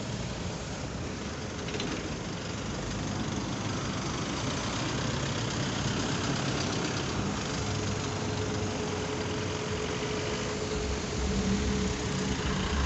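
Roadside traffic: vehicle engines running and tyre noise, growing louder toward the end, with a steady tone held from about seven and a half seconds in to about twelve.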